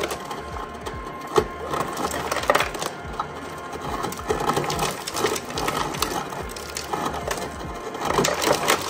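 Refrigerator door ice dispenser running: a steady motor hum with ice cubes clattering and dropping into a plastic cup.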